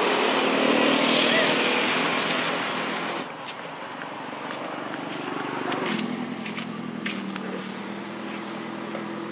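Steady engine noise of a motor vehicle running, mixed with indistinct voices. The sound drops abruptly about three seconds in and carries on quieter, with a few sharp clicks.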